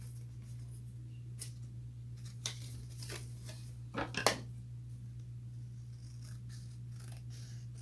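Card stock being handled and slid into a paper envelope pocket: a few short, crisp paper rustles and taps over a steady low hum.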